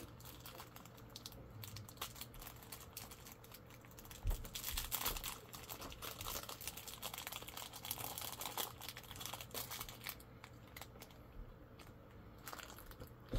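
Faint crinkling and rustling of small pin packaging being handled and opened, with many small clicks and louder rustles about four seconds in and again around eight to ten seconds.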